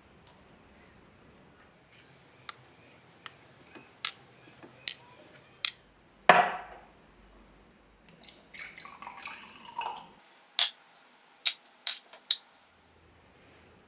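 Small metal parts clicking and clinking on a hard surface: about a dozen sharp, separate taps spread out, with a short loud rushing sound about six seconds in and a stretch of rustling around nine seconds.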